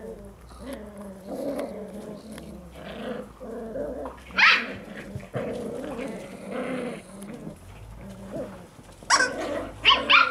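A litter of eight-week-old Mudi puppies growling in play as they tug at a rag toy. There are sharp yips about four and a half seconds in, and several more near the end, which are the loudest sounds.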